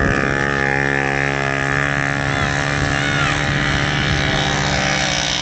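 Small moped engine running at a steady, even pitch. It fades slightly near the end.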